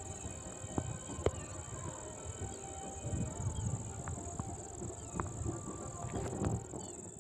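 Crickets chirping in a steady, high-pitched chorus, with uneven low rumbling underneath and a few short sharp clicks.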